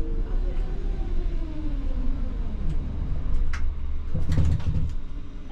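ČKD Tatra T6A5 tram running with a low rumble, its traction motors whining and falling in pitch as it slows. A loud clunking rattle comes about four seconds in.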